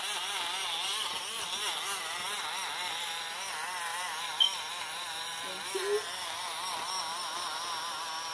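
Portable battery-powered mini blender running, its small motor whirring steadily as it blends a fruit smoothie, the pitch wavering up and down as the blades churn. A short click about four seconds in.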